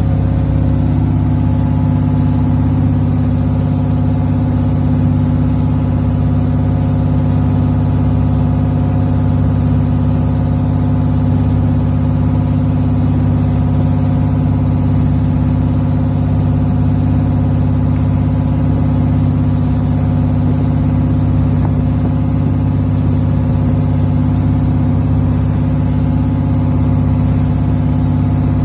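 Engine of a motorized outrigger boat (bangka) running steadily at cruising speed, a constant low drone heard on board.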